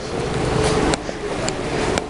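A motor vehicle running on the street: a steady noise with a faint hum.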